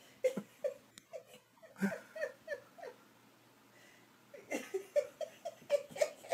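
Soft giggling in short, falling bursts, a few a second, in two runs with a pause of about a second between them.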